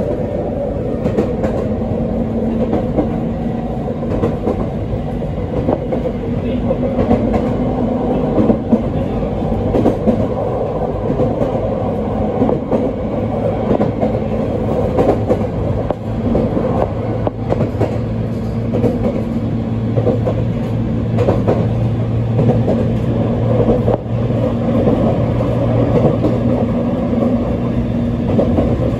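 ET127-series electric train running along the line, heard from inside the car: a steady rumble of wheels on rail. A low steady hum grows about halfway through.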